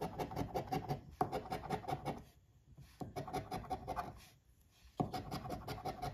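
A coin scraping the coating off a lottery scratch ticket in quick repeated strokes. It comes in three spells, with two short pauses as the coin is lifted.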